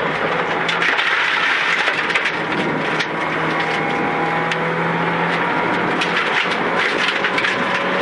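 Rally car driven hard on a gravel stage, heard from inside the cockpit: the engine runs under load beneath a steady hiss of tyres on loose gravel. Many sharp ticks are stones flicking against the car's underbody.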